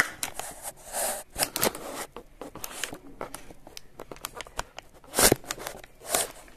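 Handling noise from a phone held in the hand: irregular rustles and scrapes, with the loudest scrape about five seconds in.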